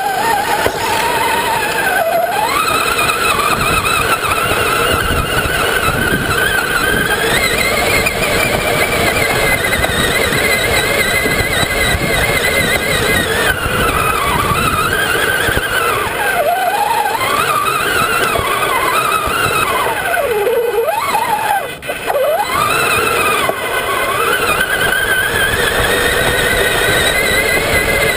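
Traxxas Summit RC truck's electric motor and gears whining under throttle as it drives over sand. The pitch rises and falls with speed, dipping sharply several times in the second half as it slows and picks up again.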